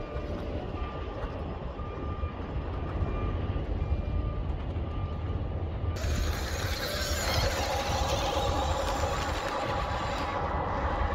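1:16-scale RC Western Star 49X dump truck driving over gravel: a steady running sound of its electric drive, with low wind rumble on the microphone. About six seconds in it turns louder and fuller, with a steady whine, as the truck runs close by.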